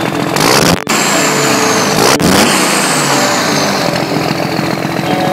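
Loud engine running and revving, with a high whine gliding downward. The sound drops out briefly just under a second in, and a sharp hit comes about two seconds in.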